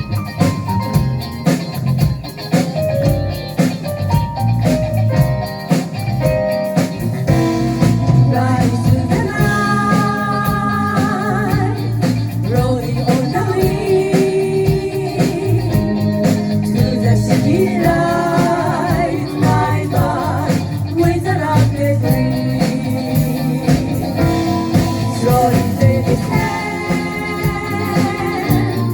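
Light jazz-funk band music with keyboards, bass and drums, and singing over it about a third of the way in and again past the middle.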